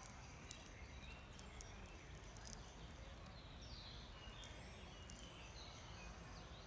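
Quiet outdoor ambience: a faint hiss with a few light clicks and some faint bird chirps.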